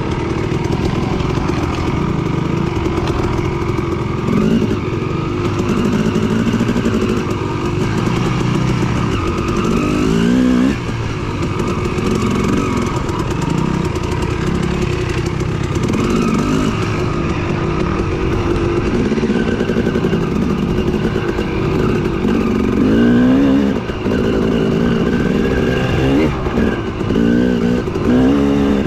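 Yamaha WR450F single-cylinder four-stroke dirt bike engine under way on a trail, revving up and dropping back several times as the throttle is worked.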